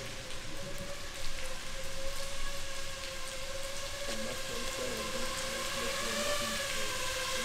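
DJI FPV drone's motors and propellers whining in flight: a steady pitched hum with higher overtones that wavers slightly in pitch, over an even hiss.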